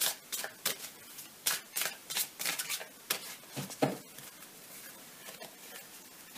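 A deck of oracle cards being shuffled by hand: a quick run of crisp card slaps and flicks, then a duller knock about four seconds in, after which only faint light handling is heard.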